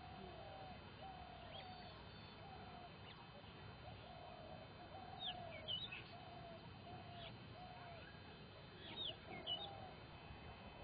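Birds calling: short, low, arching calls repeated over and over, with quick high chirps twice, about five and nine seconds in.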